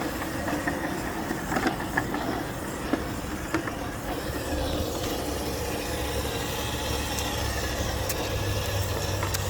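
Steady low rumble of highway traffic passing overhead, growing fuller about halfway through, with a few faint clicks.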